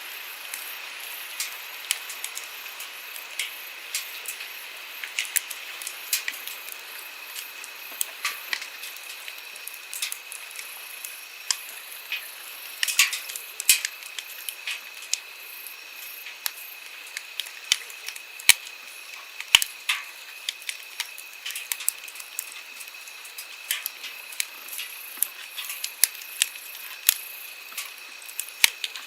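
Wood campfire crackling, with frequent irregular sharp pops, over the steady hiss of a flowing stream.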